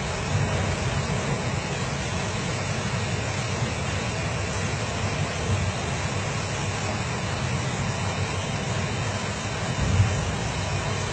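Steady roar of strong wind and rough sea, with wind buffeting the microphone as a low rumble; a louder buffet about ten seconds in.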